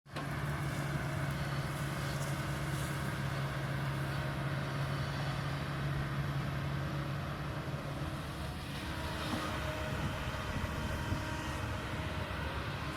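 Kobelco excavator's diesel engine running steadily with a low, even hum; about eight seconds in the steady tone fades and the sound turns rougher as the machine works.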